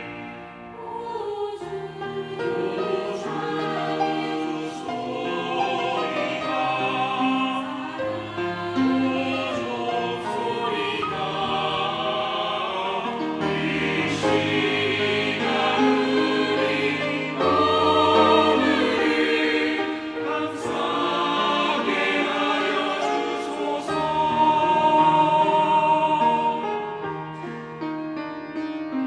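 Church choir singing a hymn in parts. The voices are fullest about three-quarters of the way through and ease off near the end.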